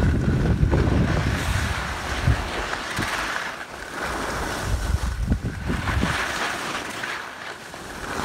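Wind buffeting the phone's microphone while sliding downhill on snow, a rumble that rises and falls, with a steady hiss over packed snow.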